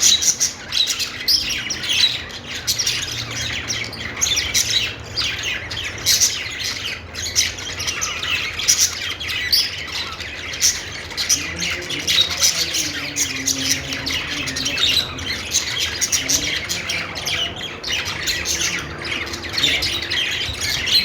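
Budgerigars warbling: a continuous, busy chatter of quick chirps, squeaks and clicks, with the odd squawk.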